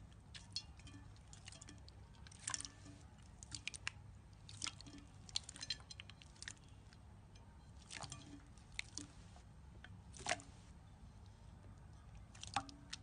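Slime being squished and worked by hand, giving irregular small sticky clicks and pops.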